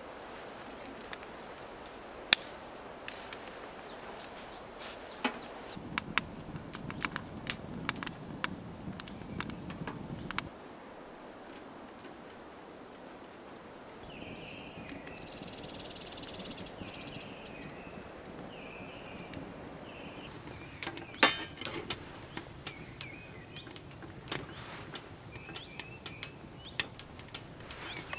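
Scattered sharp clicks and snaps, with a bird calling repeatedly for a few seconds midway.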